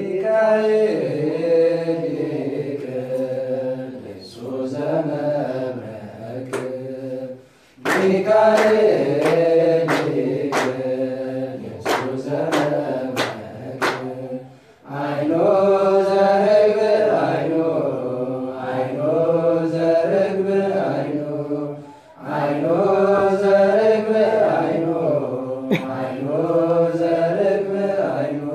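A group of voices chanting an Ethiopian Orthodox wereb hymn to Saint Michael in long, drawn-out melodic phrases, with short breaks between the phrases. Sharp, regular knocks sound in the middle of the hymn, about two every second.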